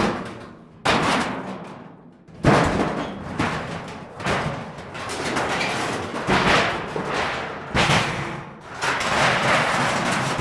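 Whiteware appliances being smashed apart: about five heavy crashes of sheet metal, each followed by noisy clatter that dies away over a second or so.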